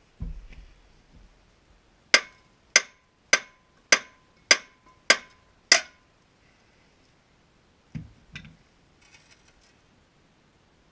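A hammer striking the steel front suspension at the wheel hub: seven sharp, evenly paced blows about two-thirds of a second apart, each with a brief metallic ring. A dull thud comes just after the start, and two duller knocks about eight seconds in.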